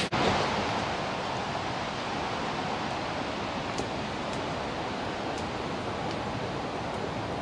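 Wood campfire burning: a steady rushing noise with a few faint, sharp crackles.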